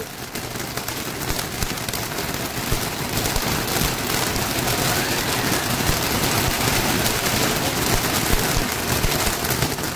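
Multi-jet ground fountain firework spraying sparks: a steady, loud hiss thick with fine crackling.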